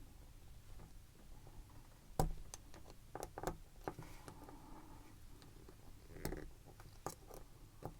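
Faint, scattered small metal clicks and scrapes of a tool prying the C-clip off the core of an American Lock 1100 padlock, with the sharpest click about two seconds in and a few more later.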